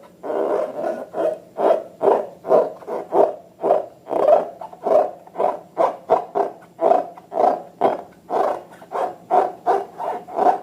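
Slime being kneaded and squeezed by hand, in repeated wet squelches about twice a second.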